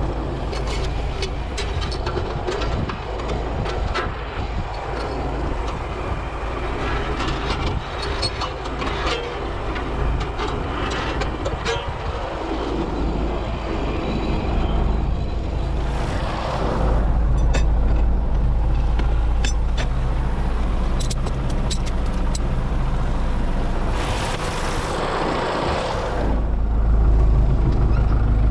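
MTZ-82 Belarus tractor's four-cylinder diesel engine running, heard from inside the cab, as a steady low drone with scattered rattles and clicks. It gets louder in steps through the second half, and two short hissing rushes come through, one past the middle and a longer one near the end.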